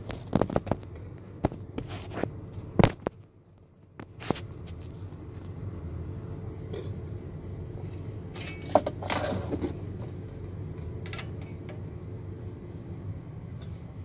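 Handling noises at a key-cutting machine: a run of knocks and clicks as the camera is set down. Then scattered clicks and one louder clunk with a short clatter about nine seconds in, as a key is fitted into the machine's clamp. A steady low hum runs underneath.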